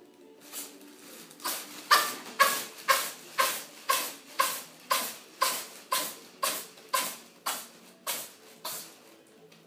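A flat-faced cat sneezing over and over in a sneezing fit: a rapid, even run of about eighteen sharp sneezes, about two a second. They start about half a second in, are loudest about two seconds in, and slowly weaken.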